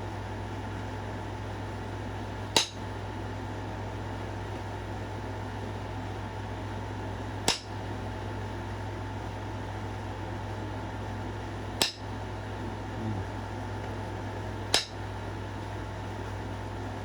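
Flintknapping: four sharp clicks a few seconds apart as flakes are taken off a stone point, while working at a stubborn step fracture. A steady air-conditioner hum runs underneath.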